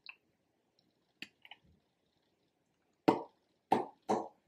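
Lips smacking and pressing together to spread freshly applied lipstick: a few faint smacks early on, then three louder, wet smacks in the last second and a half.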